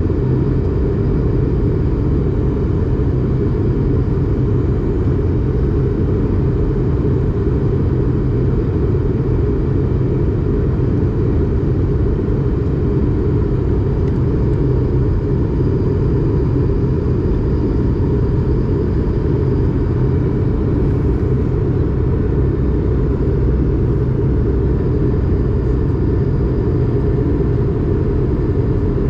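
Airbus A220-300's Pratt & Whitney PW1500G geared turbofan engines running at high thrust, heard inside the cabin as a loud, steady rumble with a deep roar of air.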